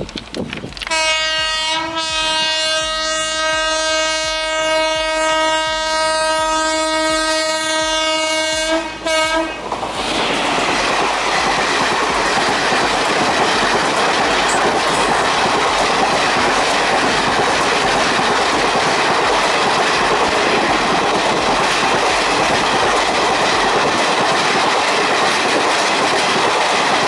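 An express train sounds its horn in one long blast with a short break near the start, lasting about nine seconds. It then rushes past at about 110 km/h with a steady, loud clatter of wheels on rails.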